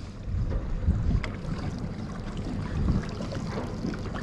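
Wind buffeting the microphone over water moving against the hull of a drifting boat, with a few faint ticks.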